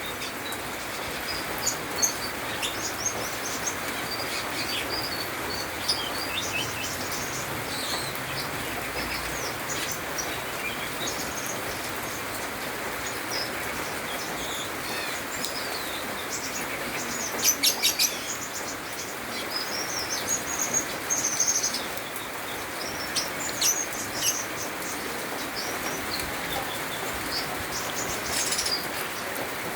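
Cucak keling songbird singing in quick, varied chirps and whistled high notes, with a dense flurry of sharp notes about two-thirds of the way through, over a steady hiss.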